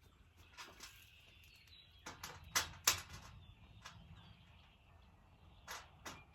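Sharp clicks and light clanks of metal raised-bed panels and bolt hardware being handled while a screw and wing nut are fitted, a cluster of several about two to three seconds in and a few more near the end.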